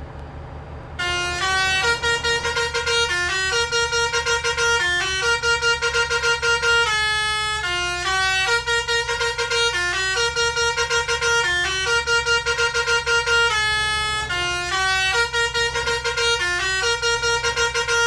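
Bus 'basuri' telolet horn, a multi-note musical air horn, starting about a second in and playing a repeating tune of stepped notes with a fast warble, over the low steady drone of the bus engine.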